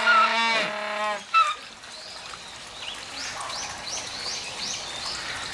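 Humboldt penguins braying: loud, held honking calls that drop in pitch at the end, the last breaking off about a second and a half in. A run of short, high rising chirps follows, about three a second.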